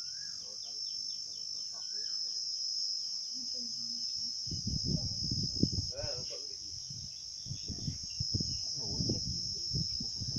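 Steady high-pitched drone of insects, with voices in the background from about halfway through.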